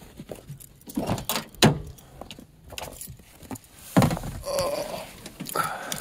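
Pickup truck door being opened and the driver climbing into the cab: a few clunks about a second in, then a loud thunk about four seconds in, followed by rustling and a faint creak.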